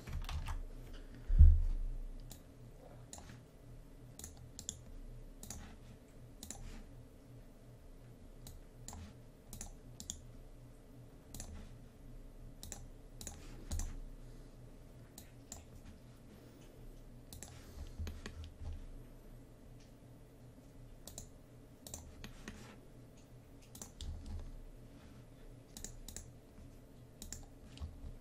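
Scattered clicks of a computer mouse and keyboard, with one low thump about a second and a half in, over a steady low hum.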